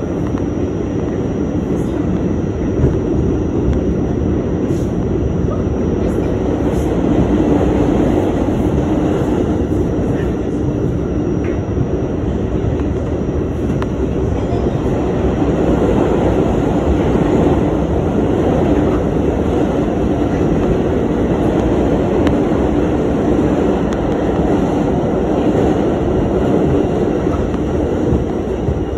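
New York City subway B train running, heard from inside the front car as a steady rumble.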